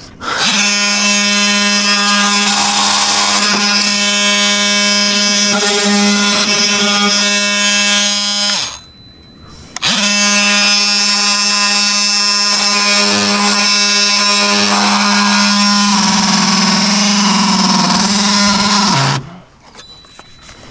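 Cordless oscillating multi-tool running in two long runs of about eight and nine seconds, with a one-second stop between them, as a steady high buzz.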